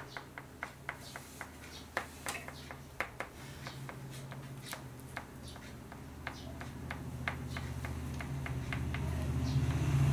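A pastel crayon dabbed and stroked on drawing paper over a hard tabletop, giving a run of irregular sharp taps and clicks. A low steady hum grows louder near the end.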